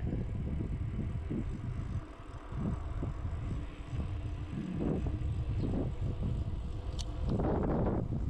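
Wind rumbling on the microphone while riding a bicycle, over tyre and road noise, with a louder rush near the end.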